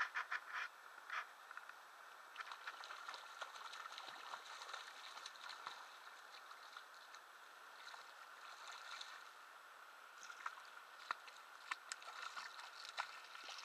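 Hooked trout splashing and thrashing at the water's surface while being played in, a run of small splashes and sharp clicks over a faint steady hiss.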